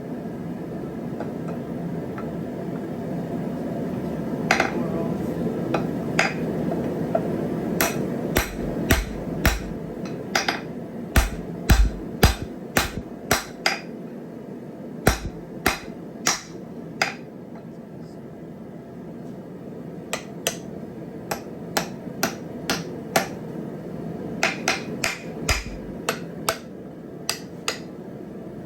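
Blacksmith's hammer striking hot steel on an anvil, forging a hot cut hardy: dozens of sharp blows in irregular runs, several a second, with short pauses between runs. A steady noise runs underneath, louder in the first half.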